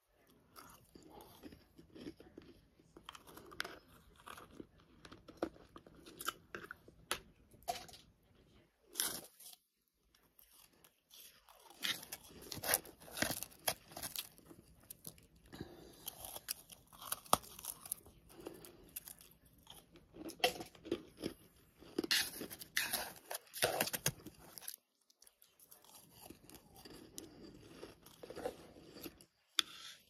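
Close-miked crunching and chewing of a mouthful of combined freezer and humidifier frost: dense runs of crisp crackles as the soft, snow-like ice is bitten and crushed, broken by a couple of short pauses.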